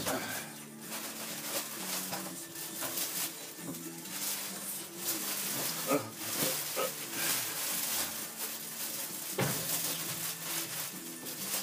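Clear plastic wrapping crinkling and rustling in irregular bursts as it is pulled off an RC buggy, over music playing in the background.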